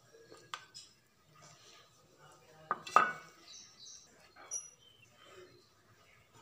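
Light clinks and taps of aluminium idli plates being handled while oil is brushed into their cups, with a sharp pair of clicks about three seconds in.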